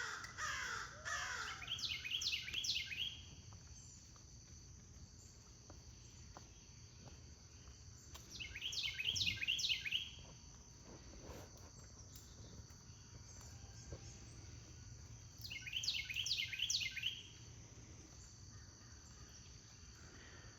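A bird calling in three bouts of quick repeated harsh notes, about seven seconds apart, over a steady high-pitched insect chorus.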